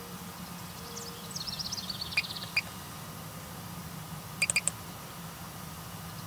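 A songbird singing a short phrase of quick descending notes that runs into a trill, then single sharp chirps and a quick group of three about halfway through. A steady low hum runs underneath.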